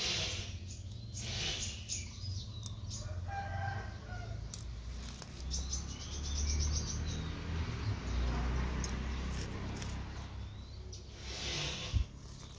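Chickens and small birds calling, with light crackling and a sharp click near the end as crushed eggshell pieces are dropped into a plastic bottle, over a steady low rumble.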